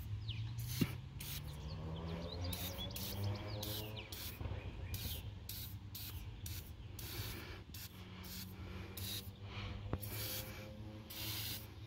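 Aerosol can of penetrating lubricant giving a rapid series of short hissing sprays onto rusty wheel lug nuts, to loosen them before they are broken free.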